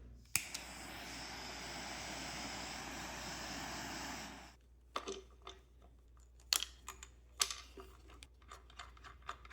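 A steady hiss lasting about four seconds, then a scatter of small sharp clicks and taps, like tools and small parts being handled while fitting a kill switch to a small outboard motor.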